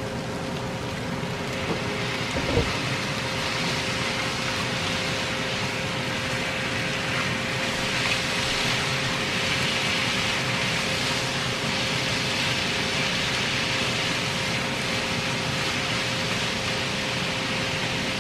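Chow mein noodles, carrot and onion sizzling in a hot frying pan as they are stir-fried with chopsticks after the soy sauce goes in, a steady hiss with one light knock of the chopsticks about two and a half seconds in.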